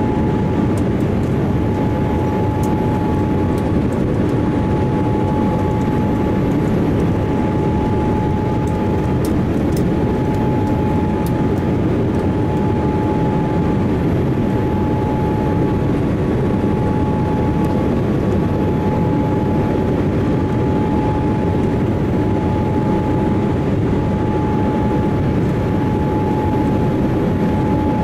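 Boeing 787-8 airliner's jet engines running steadily: an even low rumble with a constant whine held at one pitch.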